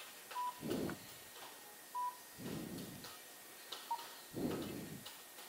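Three short electronic beeps from a gas pump's keypad as buttons are pressed, spaced a second or two apart, with soft rushing swells between them.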